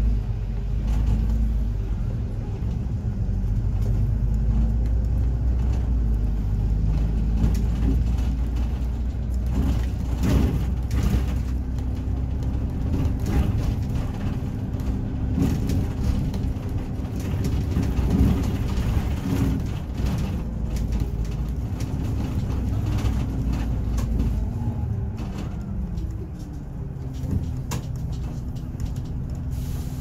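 City bus driving, heard from inside its cabin: the engine and drivetrain run with a steady low rumble and an engine note that shifts as the bus changes speed. The deepest part of the rumble drops away about 25 seconds in.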